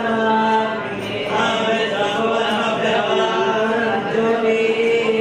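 Mantras chanted in a steady recitation with long held notes and a short break about a second in.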